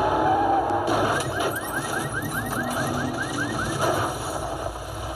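A car alarm sounding a fast run of rising electronic chirps, about five a second, starting about a second in and stopping near four seconds, over a steady rumble.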